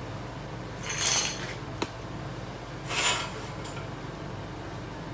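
Steel-on-steel scraping and clinking as a swing-out steel tube arm on a welded forge stand is swung on its pivot: two short rasping scrapes with a metallic ring, about a second in and about three seconds in, and a small sharp click between them.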